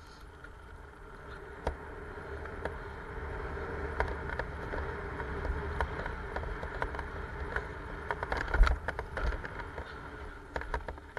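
Mountain bike rolling fast down a gravel track. Tyres crunch over the gravel under a low rumble that grows louder over the first few seconds, with frequent sharp knocks and rattles from the bike over bumps, the hardest about eight and a half seconds in.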